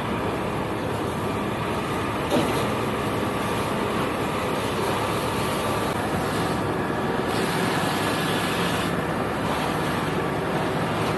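Steady loud rumble and hiss of firefighting at a house fire: water streams from fire hoses and a fire engine's pump running. A short knock about two seconds in.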